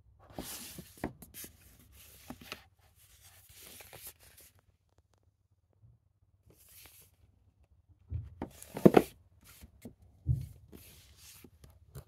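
Plastic Blu-ray cases being handled and pulled from a shelf: irregular scraping, rubbing and clacking of the cases, loudest about nine seconds in, with a dull knock a little after.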